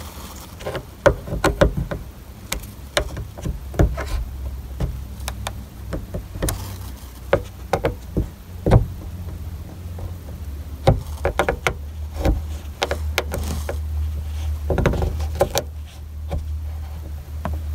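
Irregular clicks, taps and scrapes of a thin spatula being worked around the edge of a 1997 Toyota Camry's plastic dome light lens to pry it out of its trim, over a low steady hum that grows stronger about halfway through.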